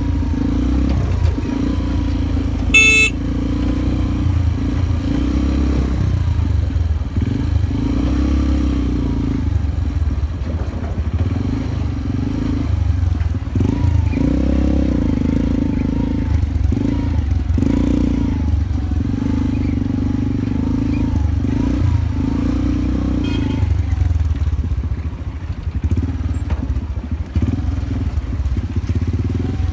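Honda XR125 motorcycle engine running under way, steady with rises and dips in load. A short, sharp sound comes about three seconds in.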